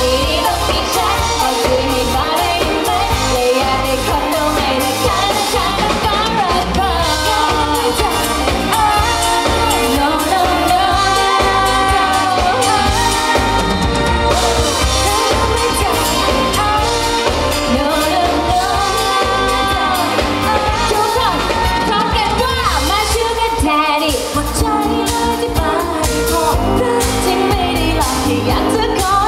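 Live Thai pop band playing: female lead vocals sung over drums, electric guitar and keyboard.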